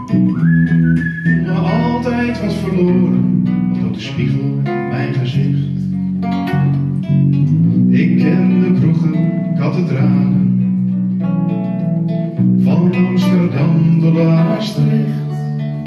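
A small live band plays an instrumental passage: two acoustic guitars, one of them nylon-strung, over an electric bass guitar.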